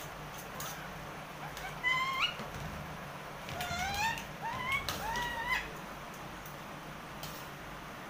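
Indian ringneck parrot calling: one short rising call about two seconds in, then a run of several more rising calls a little later. A few faint clicks sound between the calls.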